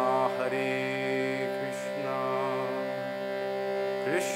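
Man singing a Gaudiya Vaishnava devotional chant in long, drawn-out melismatic notes over the steady drone of a hand-pumped reed box.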